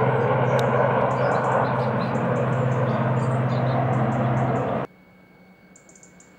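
Rescue helicopter running with a steady mechanical drone and a strong low hum, cut off abruptly about five seconds in, leaving only a faint electrical hum.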